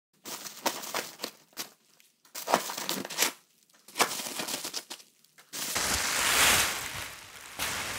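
Bubble wrap being pulled off by hand. First a string of sharp crinkles and crackles, then a continuous rustling from about five and a half seconds in.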